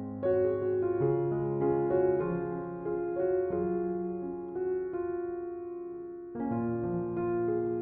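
Soft, slow piano music: single notes struck one after another over held bass notes, fading before a new chord comes in about six and a half seconds in.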